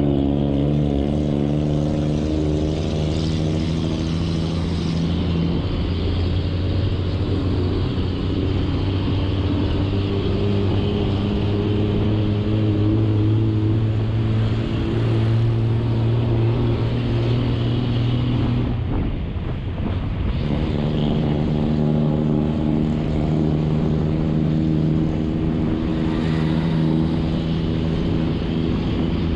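Motor vehicle engine running steadily while under way, its pitch holding level for long stretches and shifting a few times. About two-thirds of the way through the engine sound drops out briefly, then picks up again.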